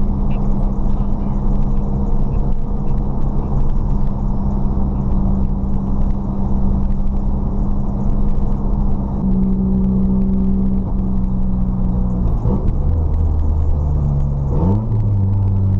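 Straight-piped SR20DET turbocharged four-cylinder engine with a 3-inch exhaust, running at steady revs. Near the end the revs change twice and settle lower.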